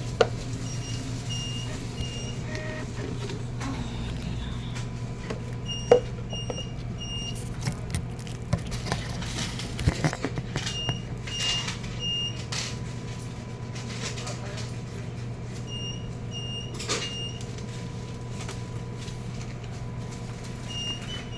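An electronic alarm beeping in sets of three short high beeps, each set about every five seconds, over a steady low hum. A few sharp clatters and knocks come through, loudest about six and ten seconds in.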